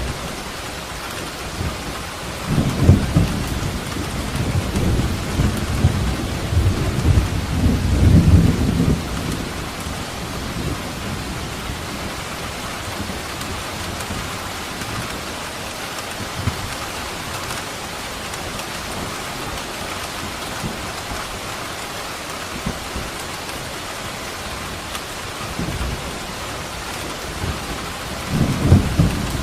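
Steady rain falling in an even hiss, with a long roll of thunder lasting several seconds a few seconds in, and another roll of thunder starting near the end.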